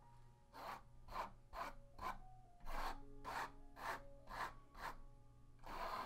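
Palette knife scraping wet paint across a painted canvas panel in short repeated strokes, about two a second, nine in all, then one longer stroke near the end.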